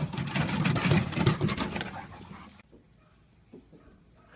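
A dog's noises mixed with scuffling commotion, then cutting off suddenly about two and a half seconds in, leaving near quiet.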